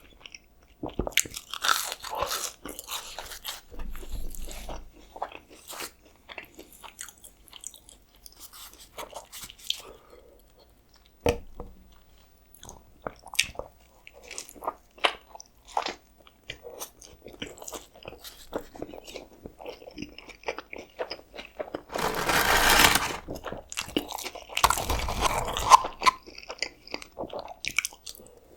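Close-miked eating of burger and fries: biting, chewing and wet mouth clicks, with two louder, longer stretches of sound near the end.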